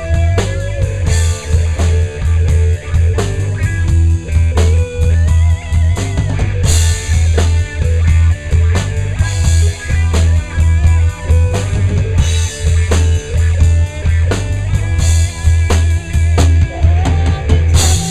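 Rock band playing a song: a drum kit drives it with steady kick and snare, with a cymbal crash every few seconds over guitar and bass.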